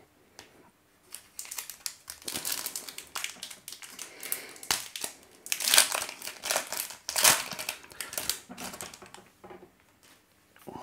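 A foil baseball-card pack wrapper crinkling and crackling as it is torn open by hand and peeled off the cards. The sound is irregular, starts about a second in and is loudest in the middle.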